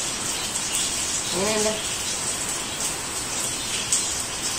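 Steady hiss of rain falling. About a second and a half in, a short hummed voice sound rises and falls.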